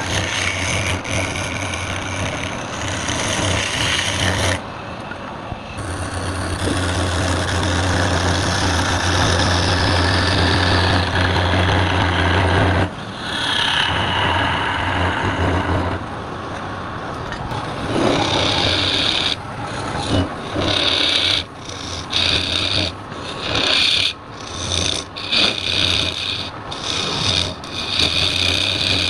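A wood lathe running with a tool scraping and cutting the spinning wood over its steady motor hum. In the last third the cutting comes in many short passes that stop and start.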